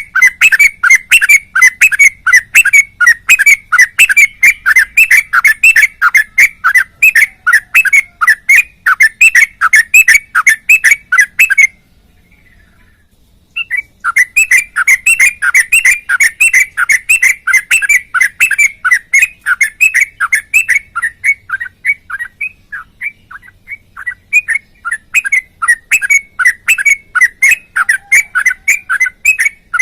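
Sooty-headed bulbul (trucuk) singing a long, fast string of short chirps, several a second, with a pause of about two seconds midway before it starts again.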